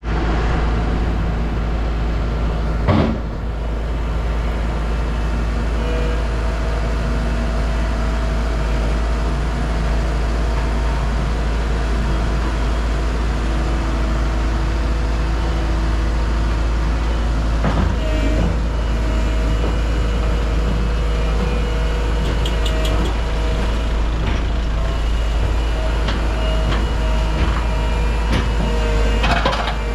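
Heavy diesel machinery running steadily with a deep rumble. A sharp metallic knock comes about three seconds in and another near eighteen seconds. From about six seconds a squealing tone comes and goes over the engine.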